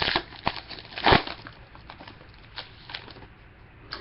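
Trading cards being handled: scattered short clicks and rustles of cardboard cards, with a louder brief shuffle about a second in.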